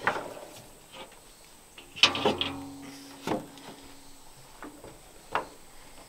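Large steel circle sawmill blade being hoisted upright by hand, clanking against the steel track: a knock at the start, the loudest clank about two seconds in with the blade ringing for a couple of seconds after it, then two more knocks.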